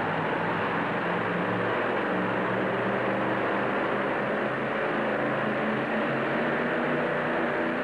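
Engine of a two-wheel-drive pulling truck idling with a steady, even note.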